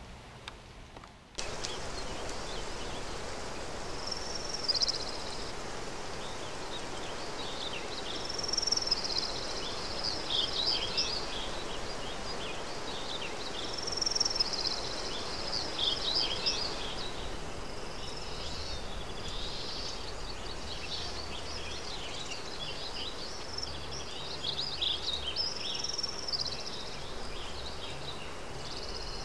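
Forest ambience that cuts in about a second in: a steady rushing hiss, with a bird singing short high phrases every few seconds.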